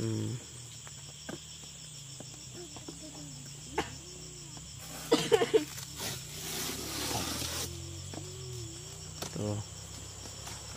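A cardboard box being opened by hand: a few sharp clicks and scrapes, then, about halfway through, a stretch of tearing and rustling from the tape, cardboard and the plastic bag around it. Insects chirr steadily in the background.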